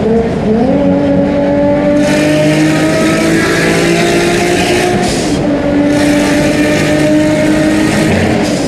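Vehicle engine running steadily, its pitch gliding up about half a second in and dropping back around five seconds in.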